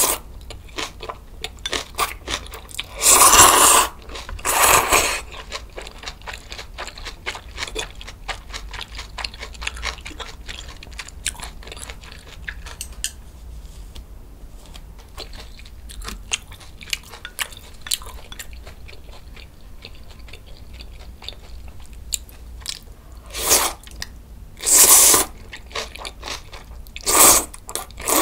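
Close-miked eating sounds: loud slurps of thick kalguksu noodles, two a few seconds in and three near the end, with steady crisp chewing of fresh cabbage geotjeori kimchi and noodles in between.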